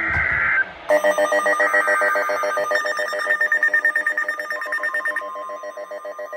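Emergency weather alert tones ahead of a new warning. A brief data-burst screech is followed by a loud, fast-warbling electronic alarm like a ringing bell, and a steady single tone joins near the end.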